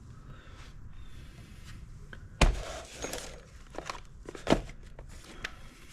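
Car parts and their boxes being handled and rummaged through: a sharp knock about two and a half seconds in, another about four and a half seconds in, with smaller clicks and rustling between.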